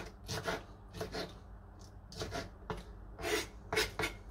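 Kitchen knife chopping tomato on a wooden cutting board: short, uneven strokes of the blade against the wood, about two or three a second.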